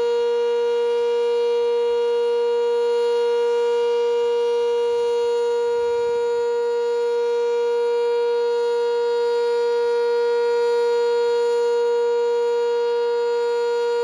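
Sentry 10V outdoor warning siren sounding the steady alert signal: one unchanging tone held at full volume, with no rise or fall in pitch.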